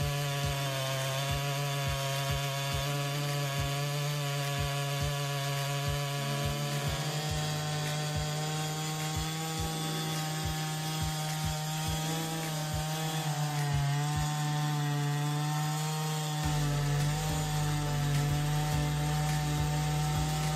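Two-stroke chainsaw running at high revs while cutting through wood, its engine note holding steady with slight dips in pitch under load.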